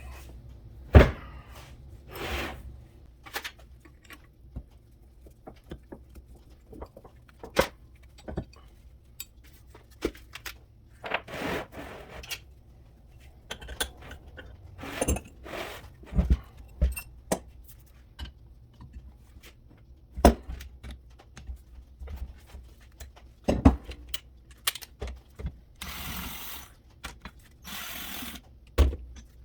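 Hand tools and steel vise parts clanking, clicking and knocking irregularly as a Kurt 6-inch milling vise is taken apart. Near the end there are two longer rasping noises.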